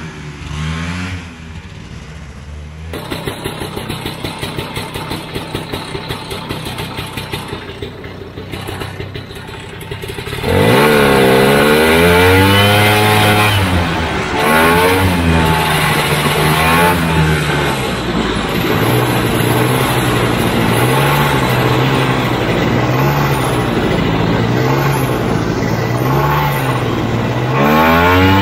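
A vintage AMF Ski Daddler snowmobile's single-cylinder two-stroke engine. It fades away with its pitch dropping, runs quieter with an even pulsing for several seconds, then about ten seconds in it revs hard and loud as the sled takes off. Its pitch then rises and falls over and over, about once a second.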